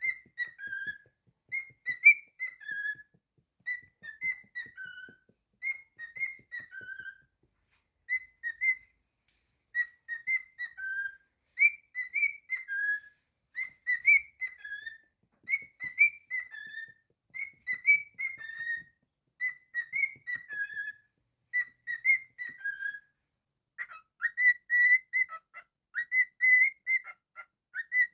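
Cockatiel whistling a tune, repeating a short phrase of a few notes about every two seconds, each phrase ending on a lower note. Near the end it changes to a quick run of short, even notes.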